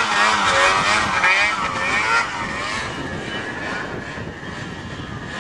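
Snowmobile engine running at high revs, its pitch wavering up and down for the first two seconds or so, then settling into a steadier, fainter drone as the machine draws away.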